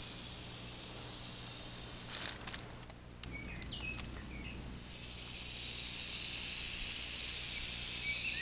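Western diamondback rattlesnake buzzing its tail rattle, a steady high hiss that is its warning to someone standing too close. The buzz falters briefly about two and a half seconds in and comes back louder from about five seconds in, with a few short bird chirps in between.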